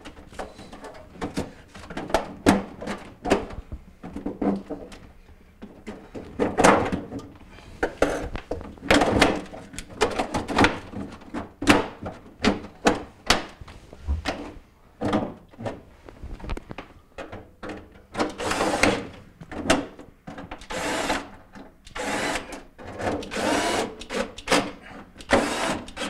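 Plastic clicks, knocks and scraping as a refrigerator's back panel is pushed and seated into place, with longer scraping sounds in the last several seconds.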